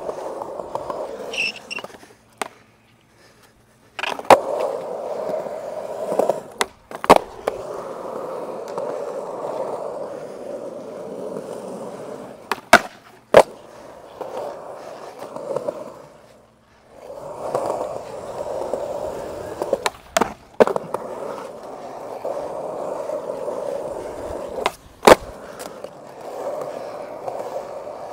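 Skateboard wheels rolling on concrete, with a string of sharp clacks as the board slaps down onto the ground. The rolling starts about four seconds in and drops away briefly a little past halfway.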